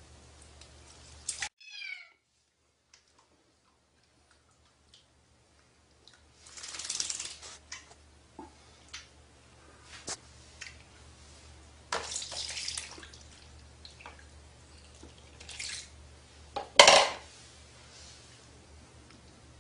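Warm water sloshing and splashing in a plastic basin as a kitten moves about in it, in several separate bursts, the loudest about seventeen seconds in. A brief falling kitten mew comes about two seconds in.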